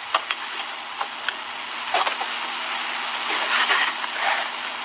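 Recorded 911 phone call with no one talking: steady line hiss broken by sharp clicks and scuffing, handling noise as the caller looks for her licence plate.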